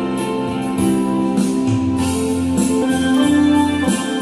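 Instrumental music: an electronic organ keyboard playing held melody notes over a steady programmed beat.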